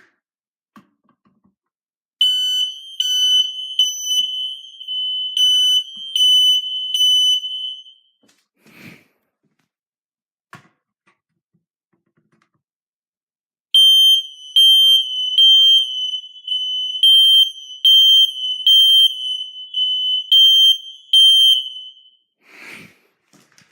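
Kidde Fyrnetics 1275 ionization smoke alarm sounding its test alarm: a loud, high-pitched pulsing horn, about six seconds long and then, after a pause, about eight seconds more. A short rustle of handling follows each run.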